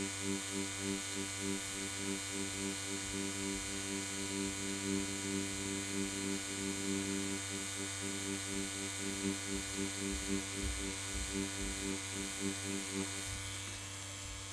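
Tattoo pen machine buzzing as it shades into silicone practice skin, its tone rising and falling about three times a second. It stops near the end, leaving a steady low hum.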